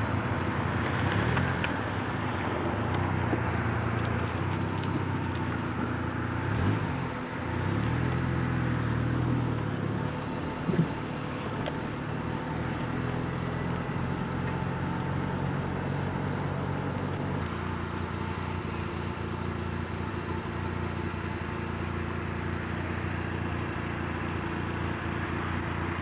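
Car engine running with road noise, heard from inside the car as it drives slowly. The engine note rises and falls a few times between about 6 and 10 seconds in, and there is one sharp click near 11 seconds.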